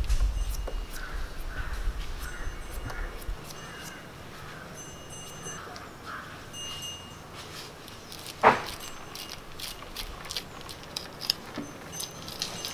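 Large knife peeling and cutting a raw green papaya and scraping out its seeds, heard as soft scrapes and small clicks, with one sharp knock about eight and a half seconds in. Faint bird calls in the background.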